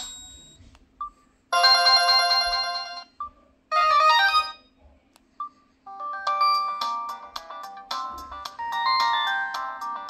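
Preloaded ringtones from a Samsung SGH-T249 phone played in turn through its speaker. One tune fades out, then two short chord snippets each stop abruptly, each with a short beep before it. About six seconds in, a longer ringtone with a quick run of notes starts.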